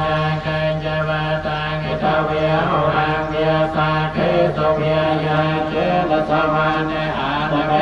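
Theravada Buddhist monks chanting a Pali blessing in unison, a steady near-monotone drone of several voices, amplified through a microphone.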